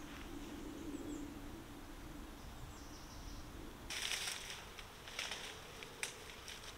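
Ivy and twigs rustling and crackling as they are pulled by hand, with a loud burst about four seconds in and two shorter crackles after it. Faint bird chirps and a low steady hum fill the first few seconds.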